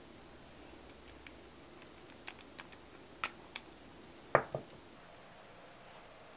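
Light clicks and taps of nail tools and a gel top-coat bottle being handled on a desk, then a louder double knock about four and a half seconds in.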